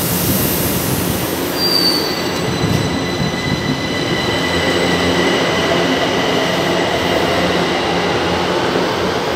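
São Paulo Metro Line 1 train pulling out of an underground station and running away down the platform, a continuous rumble of wheels and motors. Thin high-pitched tones join in about a second and a half in and hold steady.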